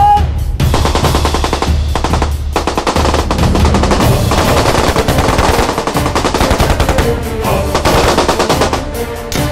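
Loud automatic fire from Kalashnikov-type assault rifles, many rapid shots in dense, overlapping bursts.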